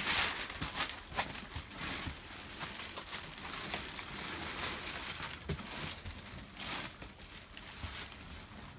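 Clear plastic bag crinkling and rustling in quick, irregular handfuls as it is pulled off a rolled, compressed mattress, loudest at the very start.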